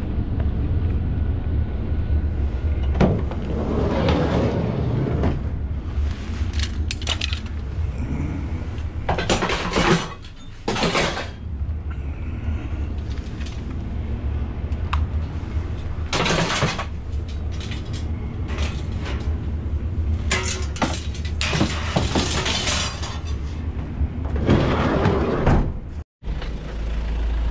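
Repeated clattering, knocks and rattles of junked items being picked up and handled for loading, over a steady low rumble.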